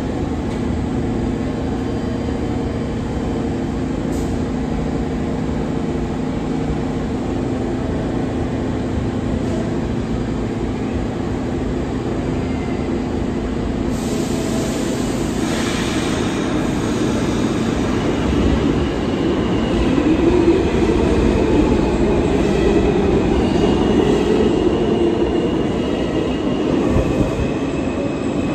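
R46 subway train standing at the platform with a steady hum from its onboard equipment. About fourteen seconds in there is a sudden burst of hiss, and the train moves off with a growing rumble, a stepping whine and wheel squeal.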